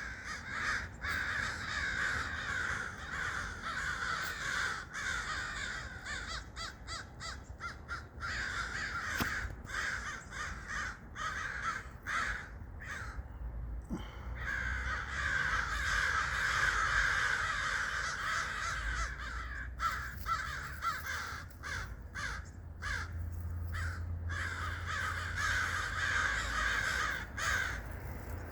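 A large flock of birds calling all at once, a dense overlapping chorus that thins briefly about halfway through.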